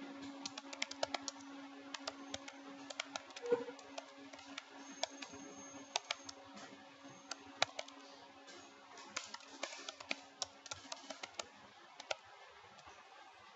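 Typing on a computer keyboard: irregular runs of quick keystrokes with short pauses, stopping near the end, over a steady low hum.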